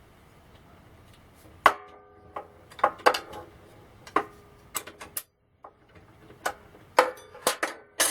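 About a dozen sharp metallic clinks and knocks at irregular intervals, several leaving a short ring: metal parts and dado blades knocking together on the table saw arbor as the blades are taken off.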